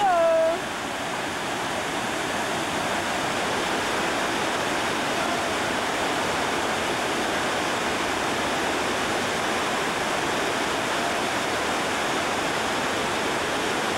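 Steady rushing of whitewater cascading over rocks, a river falls close below. A short voice cry is heard in the first half second.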